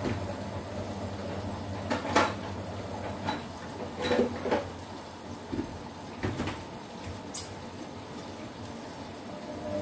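Scattered knocks and clatters of kitchen handling: a cupboard door being shut and things being set down, the sharpest knock about two seconds in and a short run of clatters about four seconds in.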